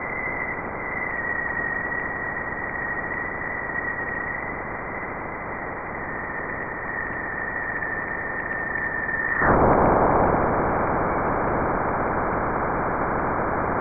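Sonified plasma-wave data from NASA's Juno spacecraft crossing the boundary of Jupiter's magnetic field: a steady hiss with a thin high tone that dips slightly in pitch early on. About nine and a half seconds in, the tone stops and the hiss turns abruptly louder.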